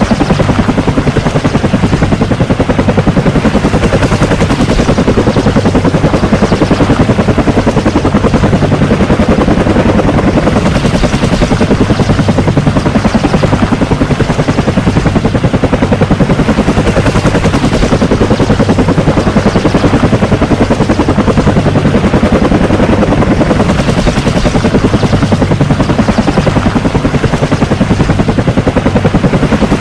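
Cobra attack helicopter running steadily, its rotor beating in a rapid, even chop at a constant loudness.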